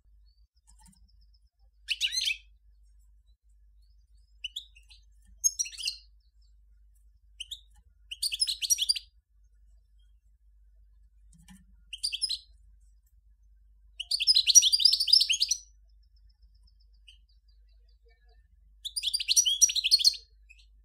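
European goldfinch of the large 'Major' race singing: a series of short bursts of rapid twittering notes with pauses between them. The longest burst, about a second and a half, comes about two-thirds of the way through.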